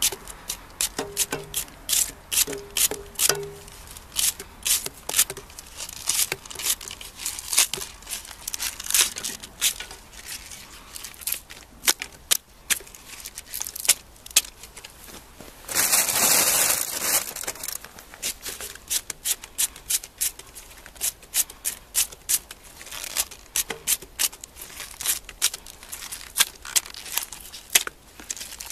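Kitchen knife cutting a green onion by hand, a long run of crisp snapping cuts through the crunchy stalk, with a brief rustle about halfway.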